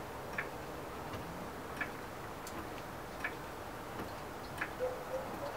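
Car jack being worked to raise the front of a car: a sharp click about every one and a half seconds, over a steady background hiss.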